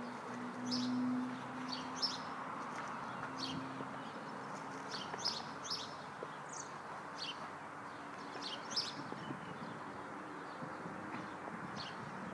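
Small birds chirping outdoors: short, sharp chirps about once a second, irregularly spaced, over a steady background hiss, with a brief low hum in the first few seconds.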